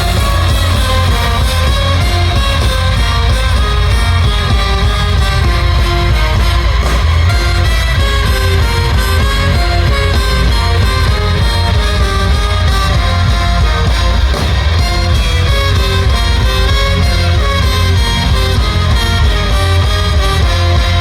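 Live rock band playing an instrumental passage of the song, loud and full, with a heavy bass and a moving melodic lead line.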